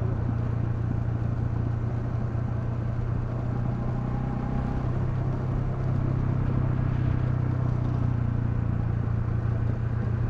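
Honda CL250's single-cylinder engine running at a steady pitch while the motorcycle rides along, with road and wind noise around it.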